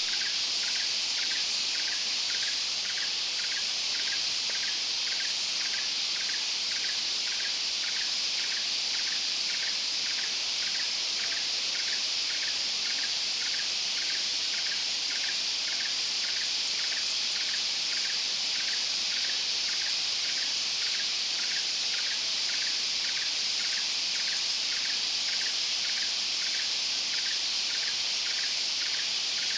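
Steady, dense high-pitched insect chorus of a tropical forest, with a short note repeating about twice a second underneath.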